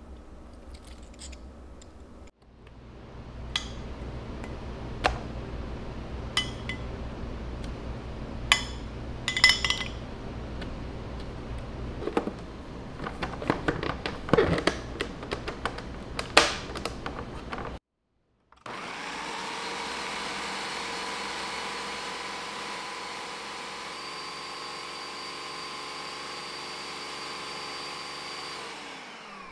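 Ninja Professional countertop blender motor spinning up with a rising whine, then running steadily for about the last ten seconds as it purées frozen berries into a smoothie. Before that come scattered clinks and knocks as ingredients are spooned into the plastic jar and the lid is fitted.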